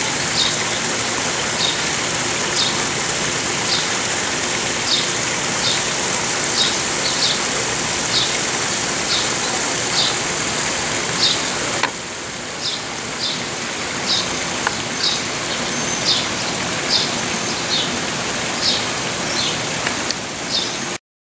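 Water running over rocks in a garden stream, a steady rush, with a small bird chirping about once a second. The water gets quieter about halfway through, and the sound cuts off just before the end.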